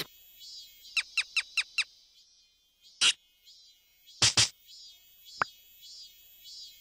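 Cartoon sound effects over a faint, steady chirring of insects. About a second in comes a quick run of five short falling squeaks, followed by a few short sharp noises and a single click.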